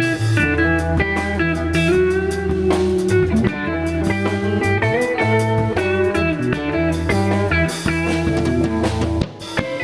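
Bluesy rock music with guitar over a steady bass line and drums; the bass drops out briefly near the end.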